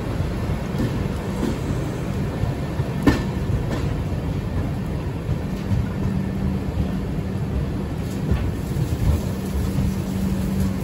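Garib Rath express train running along the track, heard from aboard: a steady rumble of wheels on rail with a sharp knock about three seconds in, and a low steady hum that comes in about halfway.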